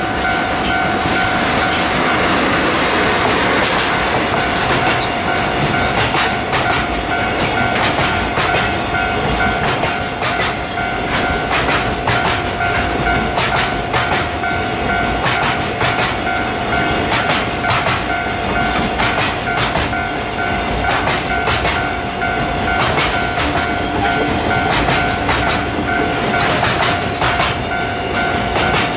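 A DD51 diesel-hydraulic locomotive hauling a long container freight train passes close by, its engine heard most in the first few seconds. The container wagons' wheels then clatter over the rail joints in an uneven run of clicks. Under the train, a level-crossing warning bell rings with a steady, pulsing high tone.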